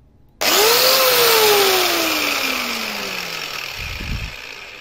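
Stanley SG7100 750 W angle grinder with a 100 mm disc switched on and running free with no load. Its motor whines up to speed within half a second, then the whine falls steadily in pitch over about three seconds as it winds down. The loud motor and fan noise fades along with it, and there is a low thud near the end. It is very loud and vibrates a lot.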